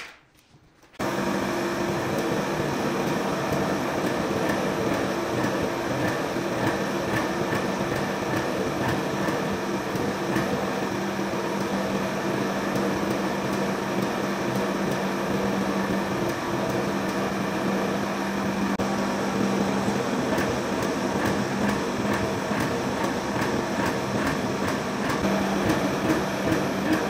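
Hydraulic forging press's power unit running: a steady machine hum that starts abruptly about a second in and holds even, with the press working the hot steel.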